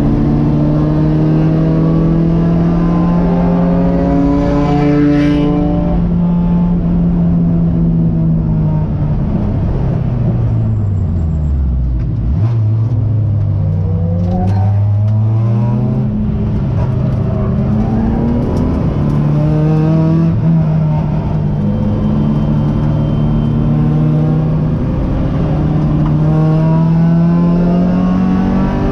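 Race car engine heard from inside the cabin, running hard at high revs. About halfway through the pitch falls steeply as the car brakes and slows for a corner, then climbs back as it accelerates, holds high, and starts to drop again near the end.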